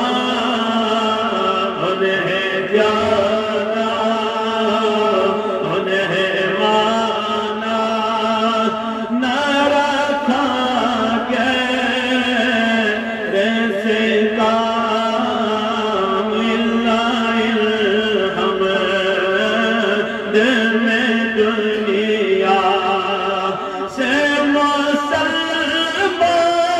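A voice chanting in long, drawn-out melodic lines, with no percussion.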